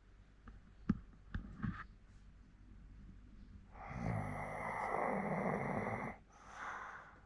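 14-year-old Hokkaido dog snoring in its sleep: a few short snorts about a second in, then one long snore of about two seconds with a low buzz in it, followed by a shorter, softer breath.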